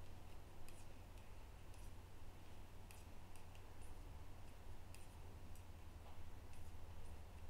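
Faint, irregular light clicks of two knitting needles tapping together as purl stitches are worked off one needle onto the other.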